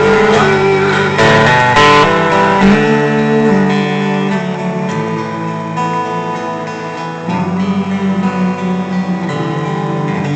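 Guitar playing chords as the closing instrumental of a live song, getting gradually quieter.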